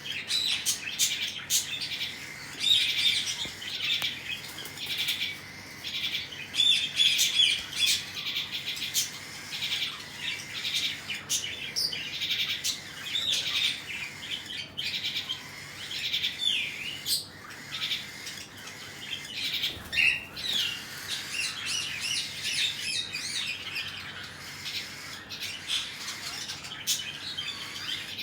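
Cockatiels chirping: a constant run of short, high chirps and squeaks, some rising or falling in pitch, with few pauses.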